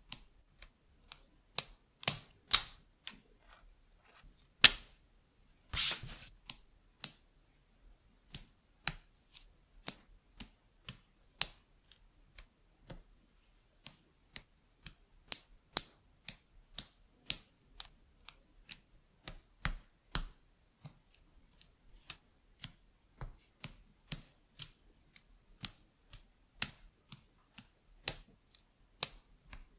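Lego Technic plastic parts clicking as pins, axles and beams are pressed together by hand: sharp, irregular clicks, about one or two a second. One longer scraping sound about six seconds in.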